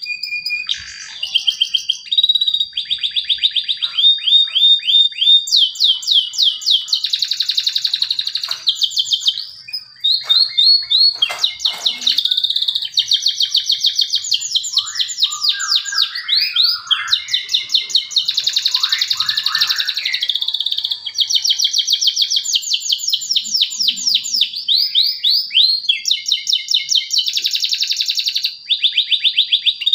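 Male domestic canary singing a long unbroken song of fast trills and rolls, each run of repeated notes switching to a new phrase every second or two, with a thin high whistle held underneath much of it.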